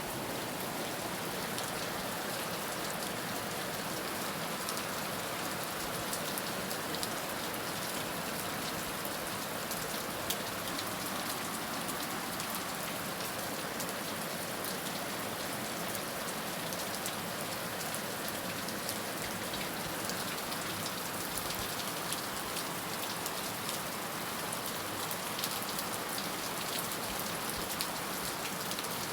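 Heavy rain falling steadily on a surface, a constant hiss dotted with the crisp ticks of individual drops.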